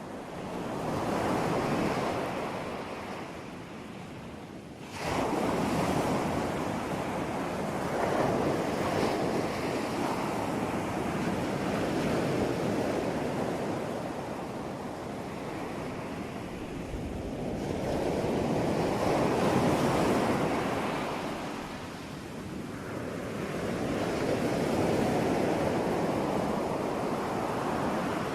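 Ocean surf: waves breaking and washing in, the sound swelling and falling back every few seconds, with a sudden rise about five seconds in.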